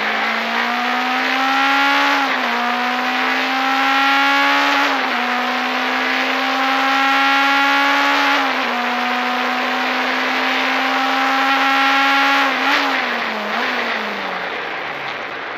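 Peugeot 205 race car's engine running hard under full throttle, heard from inside the cockpit. Its pitch climbs slowly with brief dips every few seconds, then falls away steadily near the end as the car slows.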